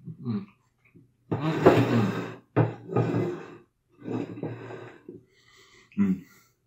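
A person's voice making several wordless vocal sounds through a mouthful of burger while eating, the longest lasting about a second.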